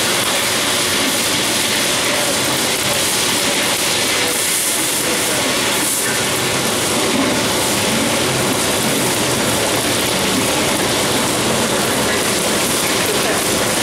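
Steady loud hiss of a high-flame burner under a large aluminium pot, with oil sizzling and crackling as whole spices fry in it for the sambar tempering.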